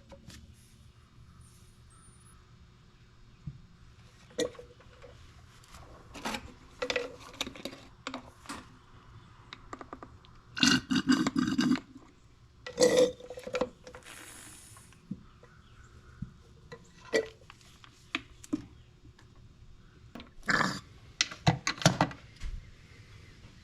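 Battery-filler bulb syringe drawing old power steering fluid out of the reservoir and emptying it into a bottle: scattered short clicks, knocks and scrapes of plastic handling, with a few longer noisy stretches.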